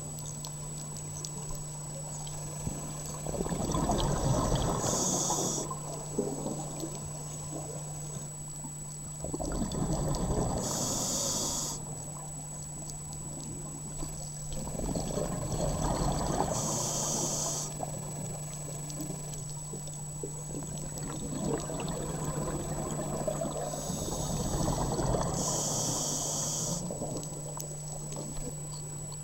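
Scuba diver breathing through a regulator underwater: four breaths about six seconds apart, each a rush of exhaled bubbles with a short high hiss of the regulator, over a steady low hum.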